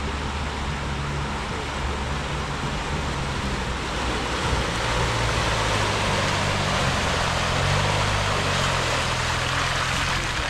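A Land Rover Freelander's engine running as it drives through a flooded, muddy rut, its tyres splashing and churning through mud and water. The engine and splashing get louder about four seconds in as the vehicle comes close past.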